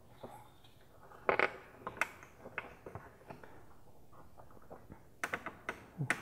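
Flathead screwdriver prying at a plastic push-in clip on a car's radiator support trim cover: scattered small clicks and scrapes, a stronger scrape about a second in, and a quick run of clicks near the end.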